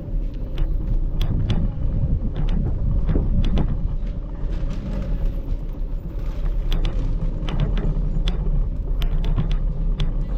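Steady low rumble with frequent short clicks and knocks throughout.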